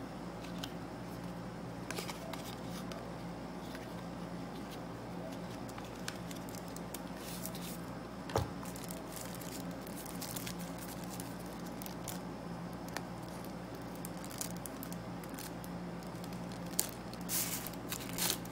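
Unboxing handling noise from a small cardboard accessory box and the tissue paper wrapped around the item: scattered crinkles, rustles and light taps, busier near the end, over a steady low hum.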